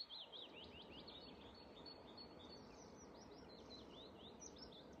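Faint birdsong: a quick run of high chirps and short sweeping notes, thickest at the start, over a soft steady hiss.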